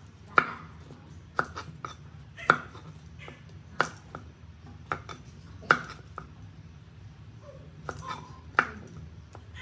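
Cleaver chopping through thick leafy-green stems onto a wooden cutting board: sharp single chops, one every second or so at an uneven pace.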